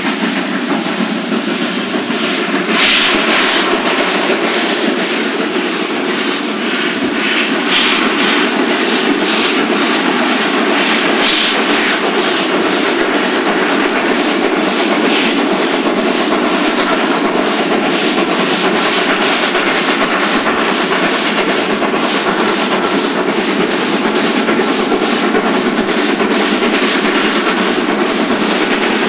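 Italian-built Mallet steam locomotive working its train up a mountain grade, its exhaust beating in a steady, rapid rhythm over the running noise of the train.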